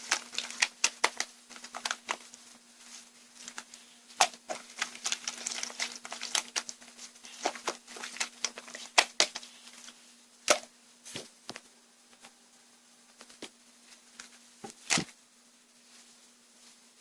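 Irregular sharp clicks and taps, busy for about the first ten seconds and then only occasional, over a faint steady hum.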